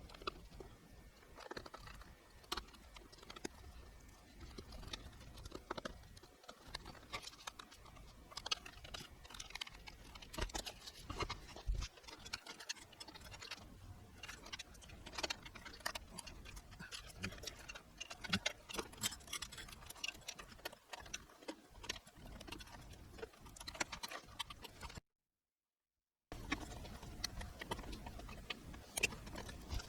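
Irregular light clicks, taps and small rattles of hands working on computer hardware, broken by a second or so of dead silence near the end.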